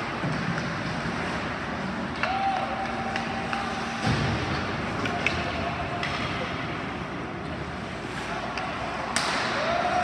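Ice hockey play over steady rink noise: sharp clacks of sticks and puck, a thud against the boards about four seconds in, and a louder crack near the end. A held mid-pitched tone sounds twice.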